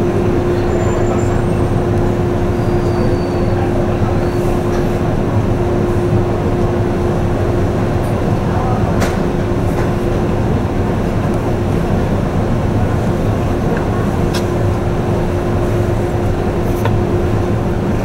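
Icebreaker's engines running steadily, heard inside the passenger cabin: a constant hum over a low rumble, with a few sharp knocks as the ship makes its way through drift ice.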